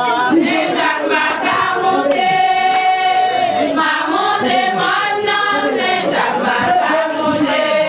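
Intro music with a choir singing.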